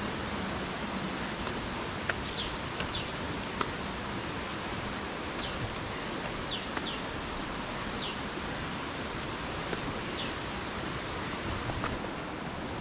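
Steady rush of a jungle waterfall cascading down rock tiers, with a bird's short high chirps, each sliding down in pitch, every second or two, and a few sharp clicks.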